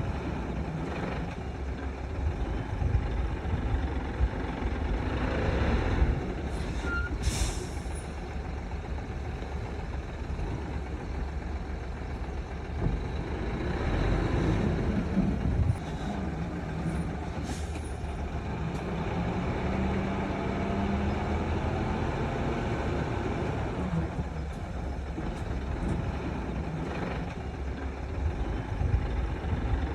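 Heavy diesel engines of a Komatsu bulldozer and a dump truck running steadily under load, with two short hisses of air, one about a quarter of the way in and one just past the middle.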